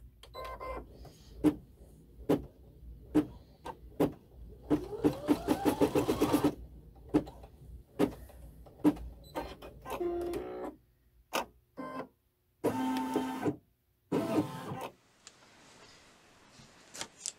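Baby Lock embroidery machine stitching a small snap-placement X: scattered single needle strokes, then a fast run of stitches with a rising whine about five seconds in, followed by a few short mechanical runs before it stops.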